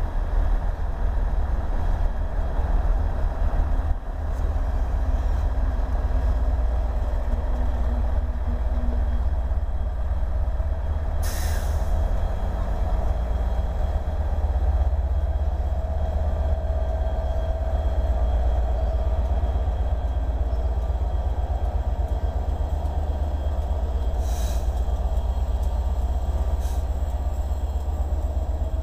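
A Chiltern Railways loco-hauled train rolls slowly past with a steady low rumble of wheels and diesel engine, and its Class 67 diesel locomotive 67012 comes alongside near the end. A few brief high squeaks sound from the wheels or brakes about 11 seconds in and twice more near the end.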